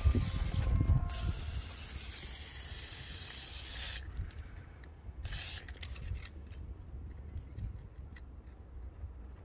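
WD-40 aerosol can sprayed through its straw nozzle over an engine's spark plugs and distributor: one long hiss of about four seconds, then a short burst about five seconds in. A low rumble sits under the first second.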